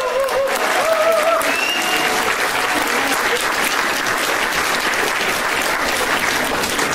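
Audience and performers applauding steadily, with a few voices calling out over the clapping during the first couple of seconds.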